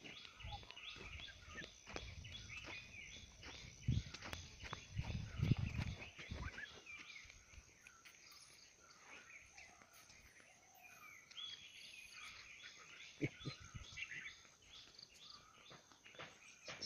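Outdoor ambience of birds chirping and calling, many short chirps throughout, with a few louder low thumps, the strongest about four to six seconds in.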